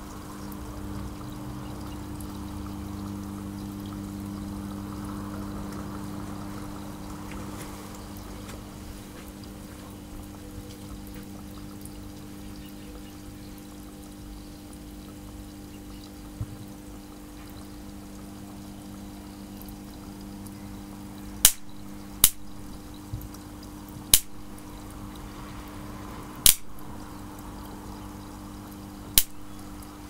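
Salt water in a tub fizzing and bubbling as DC current is driven through a submerged electrode water heater, under a steady low hum. Over the last third, five sharp, loud cracks come a second or two apart.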